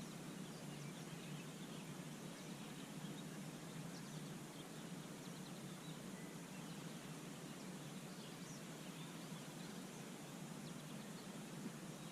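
Faint, steady outdoor hiss of lakeside air, with a few faint bird chirps now and then.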